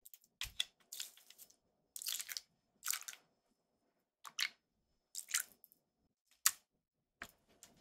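Spoons working thick sauce ingredients in a glass bowl: a wooden spoon scraping sticky gochujang onto chili flakes, and a metal measuring spoon clinking against the glass. It comes as a series of short scrapes and squishes with quiet between, with one sharp tap about six and a half seconds in.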